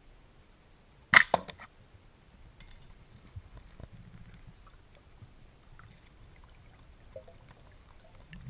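Band-powered speargun fired underwater: one loud sharp clack about a second in, followed by two fainter clacks within half a second, over a faint low underwater rumble.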